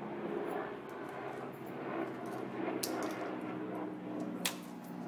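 Corded electric pet clippers running with a steady buzzing hum, with two sharp clicks, about three seconds in and again about four and a half seconds in.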